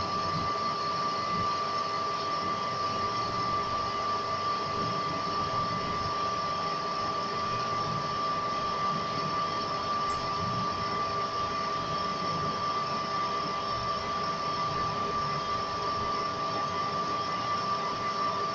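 Metal lathe running at a steady speed, its tool cutting a small mild steel workpiece held in the chuck: an even machine noise with a constant high whine.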